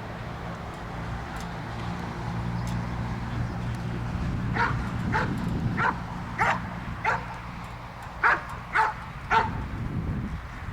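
Belgian Shepherd dog barking repeatedly, about eight short barks roughly half a second apart, beginning about four seconds in with a brief pause partway through.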